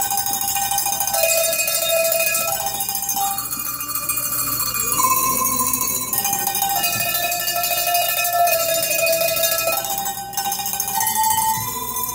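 A set of tuned Alpine cowbells picked up and shaken one after another to play a melody, each bell ringing a sustained note over the jangle of the clappers.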